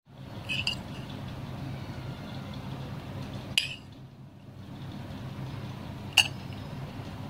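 Three short, sharp clinks of crockery or a utensil against a dish, the first about half a second in, the second about three and a half seconds in, the last and loudest about six seconds in, over a steady low hum.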